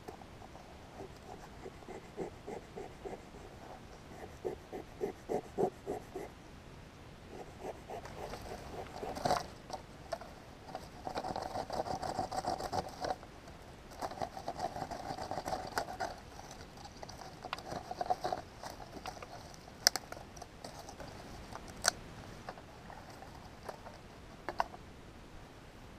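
A hand-held stone scraping, cutting and knocking against a cane stick: runs of quick ticks, then rasping scrapes in stretches, and a few single sharp cracks near the end.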